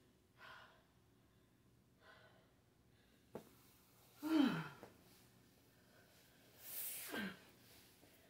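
A woman's breathing and sighs during a floor stretch: soft breaths and a small click, then about halfway a short voiced sigh falling in pitch, and near the end a longer breathy exhale that drops into a low groan.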